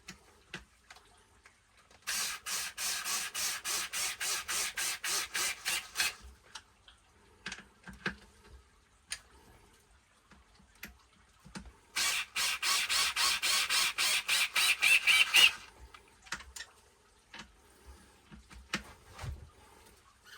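A tool ratcheting as it tightens screws, in two runs of rapid, evenly spaced clicking about four seconds each, with a few light ticks and taps between them.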